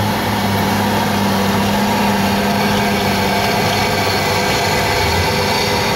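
Large diesel engine of a Fendt farm tractor running steadily under load as it pulls a weight-transfer sled.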